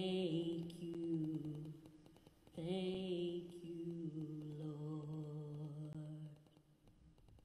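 A woman singing unaccompanied, holding two long notes with vibrato as the closing phrase of a gospel song. The second note fades out about six seconds in.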